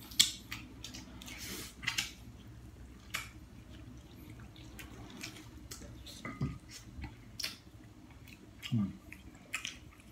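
Eating sounds: scattered soft wet clicks and smacks of roast duck being picked apart by hand and eaten, a few each second at most.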